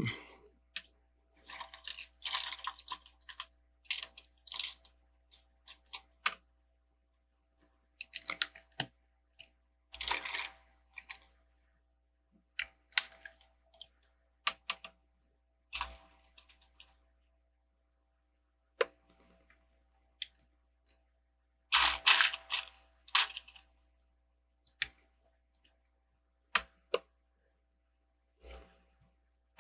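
Plastic Lego bricks being handled and pressed together: scattered sharp clicks with a few short bursts of clattering as pieces are picked out and moved.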